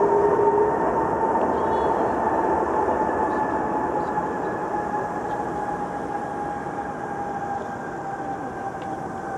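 Airbus A330-243's Rolls-Royce Trent 772B engines during the landing rollout: a steady rushing roar with a whine that slowly falls in pitch, fading gradually as the aircraft slows and moves away.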